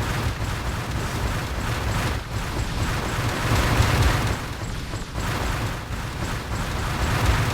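Vacuum cleaner running: a loud, continuous rush of air with a heavy low rumble that swells and eases, loudest about four seconds in.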